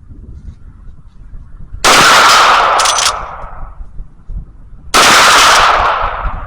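Two loud gunshots about three seconds apart, each trailing off over about a second.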